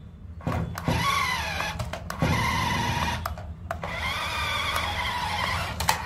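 Small electric drive motors and plastic gearboxes of toy RC cars whining under load, pitch rising and falling. There are two runs with a short break about three and a half seconds in, and a few sharp plastic clicks and knocks.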